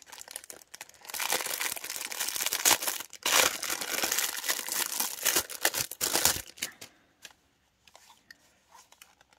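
Clear plastic wrapping crinkling as it is unwrapped and pulled off a cylindrical washi tape traveler case. The crinkling stops about two-thirds of the way through, leaving a few faint rustles.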